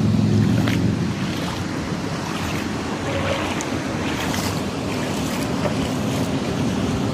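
Flip-flop footsteps splashing through ankle-deep floodwater, a few splashes standing out, over a steady wash of wind noise on the microphone.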